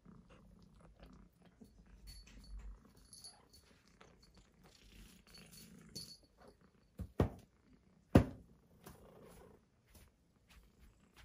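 A kitten playing with a wand cat toy: soft rustling and light ticks as it bats at the string and tinsel, with two sharp knocks about seven and eight seconds in.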